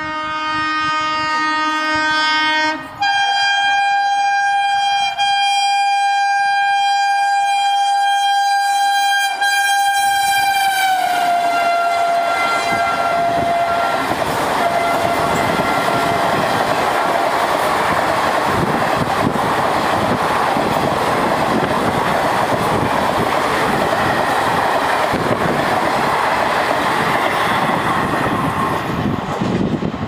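An Indian Railways WAP-4 electric locomotive sounding its dual-tone horn as it approaches at speed: the horn changes tone about three seconds in, is held, then drops in pitch as the locomotive passes and fades. The express coaches then rush past with a steady clatter of wheels on the rails.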